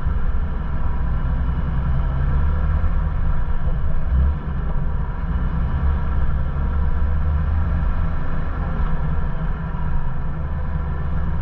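Ford Bronco running as it crawls slowly along a rocky off-road trail, a steady low engine and drivetrain rumble.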